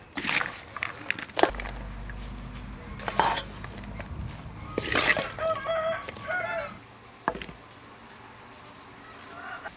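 Sharp clinks and knocks of a spatula against metal cookware, with a few short clucking calls from a chicken about five to six and a half seconds in. A low hum runs under the middle of it.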